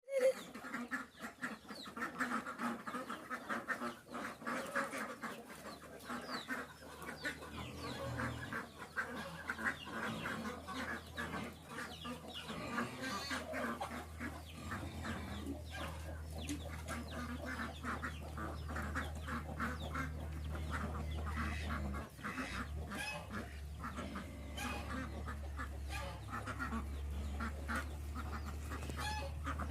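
Chickens and other farm poultry clucking and calling, many short calls overlapping. A low steady hum runs underneath from about seven seconds in.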